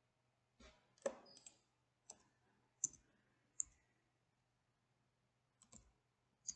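Faint computer keyboard keystrokes: about eight separate clicks at an irregular, slow pace while code is typed.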